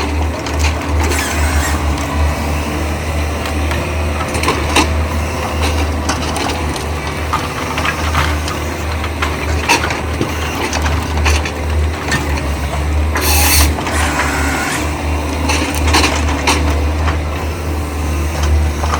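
Yanmar SV100-2A excavator's diesel engine running steadily under work, with scattered knocks and clicks from the machine and its load, and a short loud rush of noise about two-thirds of the way through.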